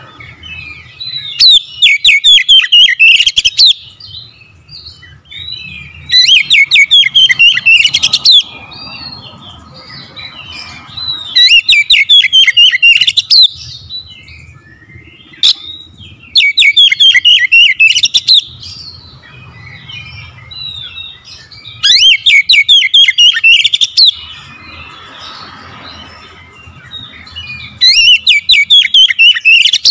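Caged oriental magpie-robin singing: loud, rapid phrases of quick repeated notes, each two to three seconds long, come about every five seconds, with softer twittering in between.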